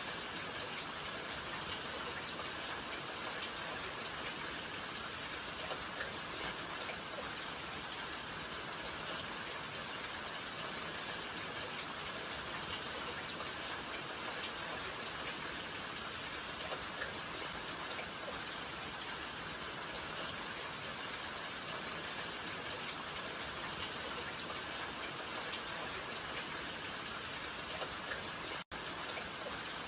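Steady rain falling, an even hiss with scattered faint drop ticks. The sound cuts out for an instant near the end, then resumes.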